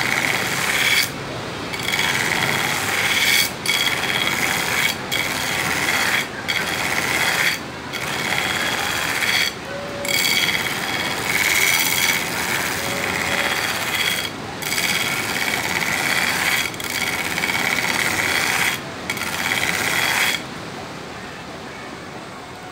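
Steel knife blade ground against a running belt grinder's abrasive belt to shape a distal taper: a harsh grinding hiss with a steady high whine, broken by short pauses every second or two as the blade is lifted between passes. Near the end the grinding stops, leaving only the grinder's quieter running noise.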